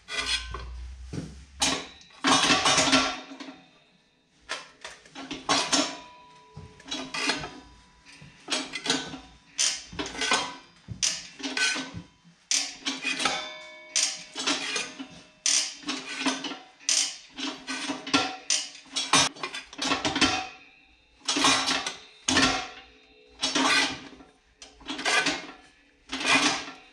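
Repeated metallic blows on a sheet-steel panel, about one a second, each ringing briefly, as the panel's edge is worked to stretch it.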